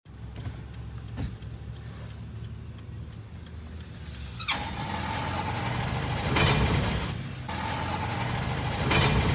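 Toyota HiAce van's engine running, then about four and a half seconds in a steady high whine starts from the clutch and gearbox, dropping out briefly and swelling twice into louder, noisier surges. It is the noise the van makes when changing gears, from a clutch assembly problem.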